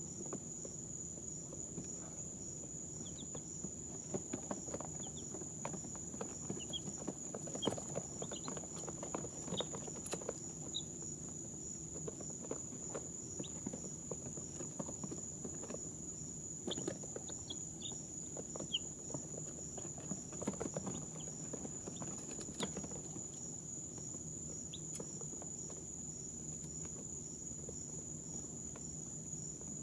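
Baby chicks giving occasional short, soft peeps, with scattered light clicks and pattering from their feet and beaks on the bedding. Under them run a steady high-pitched whine and a low hum.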